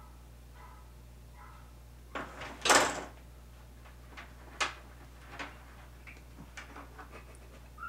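Several short, light knocks and one louder clatter, about half a second long, a little under three seconds in, over a low steady hum.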